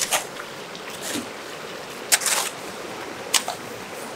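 Wet cement mortar being worked with a metal hand tool: a few sharp scrapes and knocks, the longest a short scrape about two seconds in.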